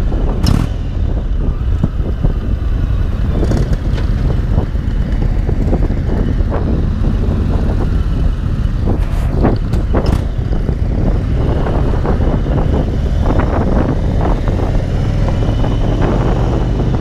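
Cruiser motorcycle engine running while riding at street speed, with wind rushing over the microphone. A few brief sharp knocks stand out here and there.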